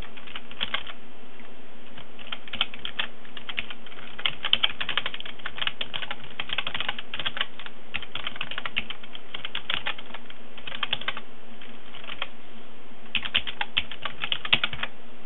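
Computer keyboard being typed on: quick runs of key clicks, with a short pause about two-thirds of the way through.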